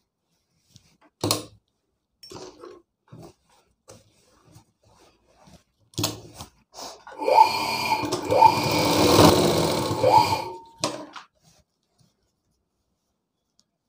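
Sewing machine stitching through fabric for about three seconds, its whir climbing in pitch in a few quick surges. Scattered clicks and knocks come before and after the run.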